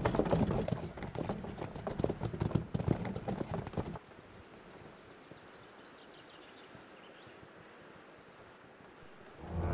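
Horses' hooves clopping close by, many overlapping strikes, for about four seconds. Then the sound drops suddenly to a faint, distant background, and a low music swell begins near the end.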